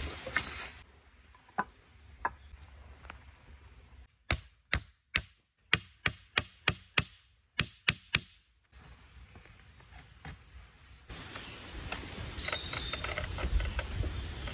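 Wood being chopped with an axe: about a dozen sharp strikes, two or three a second, starting about four seconds in and stopping about four seconds later.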